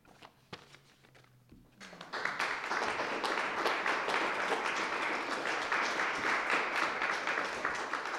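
A few faint clicks in a short lull, then audience applause breaks out about two seconds in and carries on steadily.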